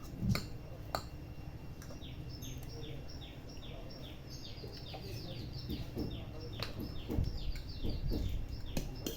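A bird chirping in a steady series of short, falling notes, two or three a second, with scattered clicks and low knocks around it.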